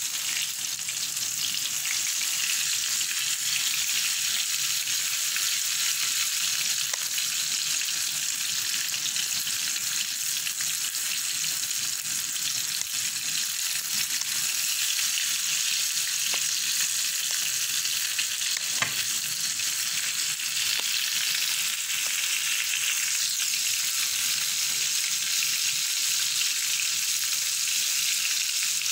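Batter-coated chilli bajjis deep-frying in hot oil in a wok, a steady, even sizzle. One brief tap is heard about two-thirds of the way through.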